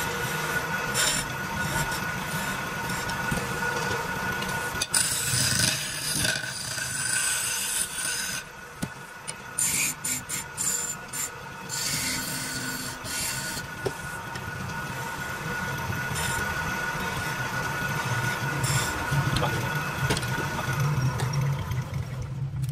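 Wood lathe running with a steady hum while a hand-held turning chisel scrapes and cuts a spinning wooden baluster. The cutting hiss comes and goes in short strokes as the tool is worked along the shape.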